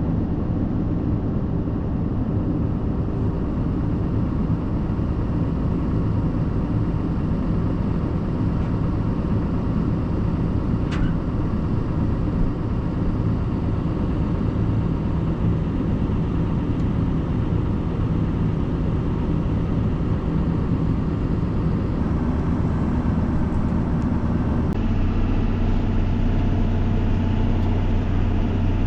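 Farm tractor engine running steadily with a low, even drone. Near the end the engine note changes and becomes deeper and stronger.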